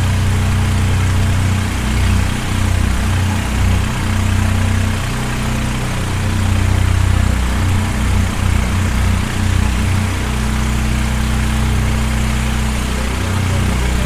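An engine running steadily, a low drone with a slight wavering, under an even rush of noise.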